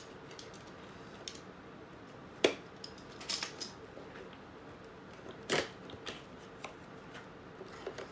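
A cardboard box being opened by hand: scattered scrapes, rustles and light taps of cardboard as the box is turned and its top flap pulled open, with a sharp tap about two and a half seconds in and another short burst of scraping about five and a half seconds in.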